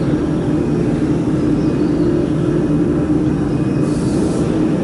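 Steady, loud machinery hum with a held low tone, like fans or motors running on a factory floor. A short hiss comes about four seconds in.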